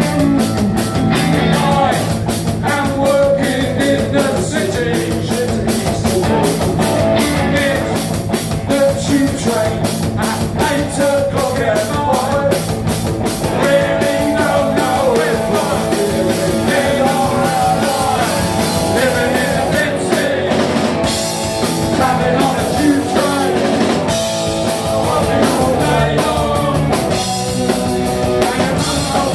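Live punk rock band playing at full volume: electric guitars, bass and a steadily driving drum kit, with a singing voice over the top.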